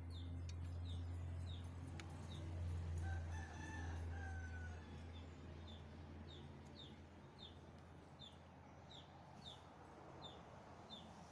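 A rooster crows once, beginning about two seconds in, over a small bird's short chirps repeating about twice a second. A steady low hum runs underneath and fades after the crow.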